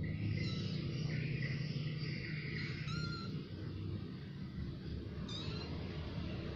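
Young kittens mewing: several thin, high-pitched mews, a drawn-out stretch in the first few seconds, then a short one about three seconds in and another just after five seconds, over a steady low rumble.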